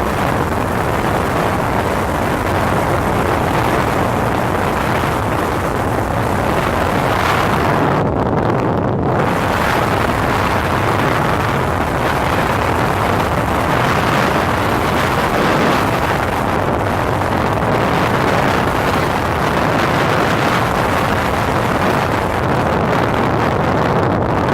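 Steady rushing noise of a moving chase vehicle, road and wind noise with a low rumble, briefly duller about a third of the way in.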